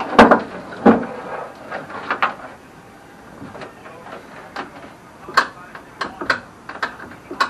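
Irregular knocks and clicks of hand work on a car's interior, with two loud knocks in the first second and smaller clicks after, as the dashboard is being stripped out.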